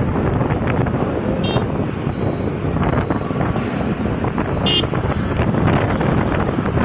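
Wind buffeting the microphone over the steady running of a motorbike on the move, with two brief high chirps about one and a half seconds and nearly five seconds in.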